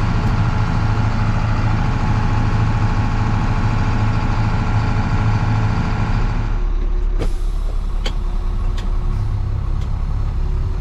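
Tractor running while the grain cart's unloading auger pours high moisture corn into a truck. About two-thirds of the way through, the loud auger and grain noise stops, leaving a low engine rumble and a few knocks.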